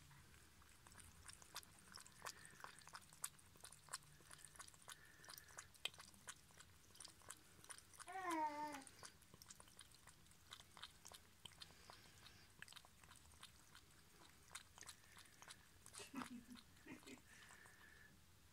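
Domestic cat lapping water from a plastic bucket: faint, quick wet clicks of its tongue at the water's surface. About eight seconds in comes a brief wavering voice-like sound.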